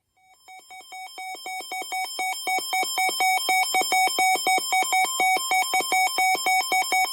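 Weather radio alert alarm: rapid electronic beeping that alternates between two pitches about three to four times a second, growing steadily louder, then cutting off suddenly.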